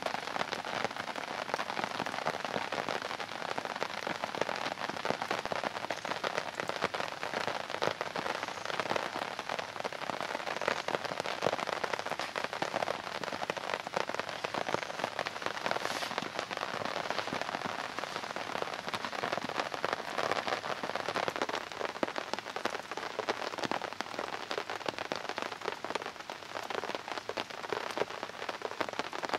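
Heavy rain falling steadily on a tarp shelter, a dense, even patter of drops.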